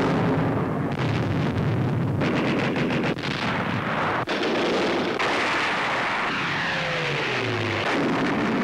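Tank guns firing and shells exploding: repeated sharp bangs through the first half over a continuous rumble of engines and blasts, with a falling whine passing about two-thirds of the way through.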